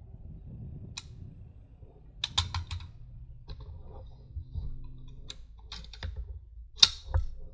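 Metallic clicks and clacks of an M16A1-clone AR-15 rifle being handled after shooting: a quick run of several clicks about two seconds in, single clicks scattered after, and the loudest clack near the end.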